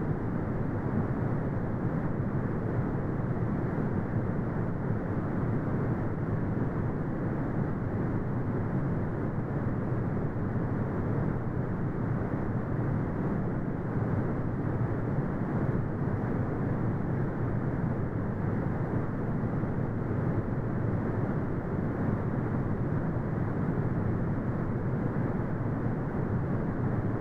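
Steady synthetic brown noise: a deep, even rumbling hiss with most of its weight in the low end and nothing above the upper midrange, unchanging throughout.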